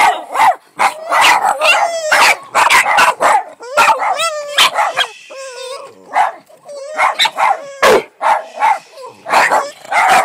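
Several dogs, Boston terriers among them, barking and yipping in quick succession, with a high, wavering whine about four to five seconds in.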